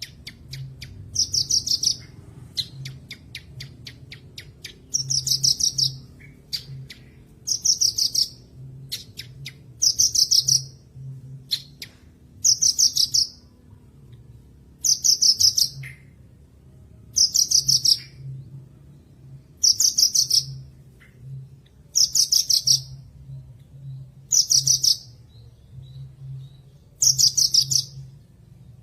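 Javan bush lark (branjangan) singing: short, high, rapidly trilled phrases repeated about every two and a half seconds, with a run of quick ticking notes in the first few seconds. A faint low hum runs underneath.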